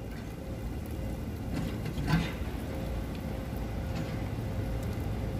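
Steady low background rumble with a few faint clicks and a brief rustle about two seconds in.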